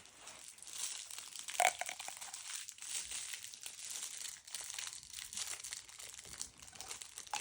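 Plastic packaging crinkling and rustling as fidget toys are handled and unwrapped, with many small crackles and a sharper click about one and a half seconds in.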